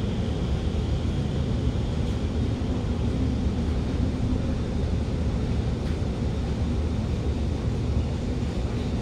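Cabin running noise of an Alstom Movia R151 metro train slowing into a station: a steady low rumble, with a faint high whine that fades out in the first couple of seconds.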